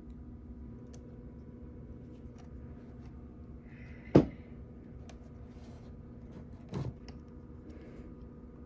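Faint taps and clicks of small plastic parts being handled on a work surface, with one sharp click about four seconds in and a softer one near seven seconds, over a steady low hum.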